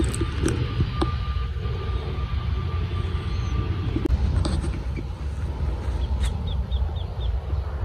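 Steady low rumble of wind buffeting a phone microphone outdoors, with scattered handling knocks and the brush of leaves as the phone moves through a shrub. About six seconds in, a small bird chirps five quick times.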